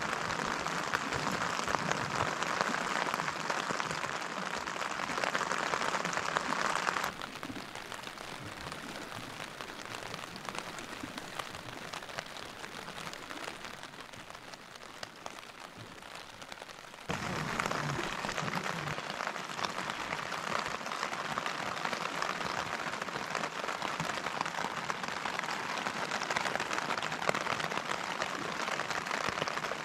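Steady rain falling, an even hiss that drops abruptly to a softer level about seven seconds in and returns just as abruptly about ten seconds later.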